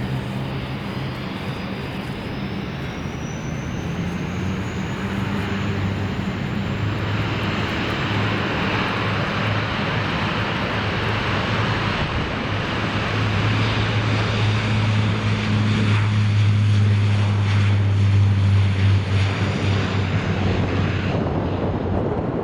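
Airliner engines running close by: a steady low hum with a thin high whine that rises over the first few seconds. The sound grows louder to a peak about three-quarters of the way through, then changes abruptly near the end to wind noise on the microphone.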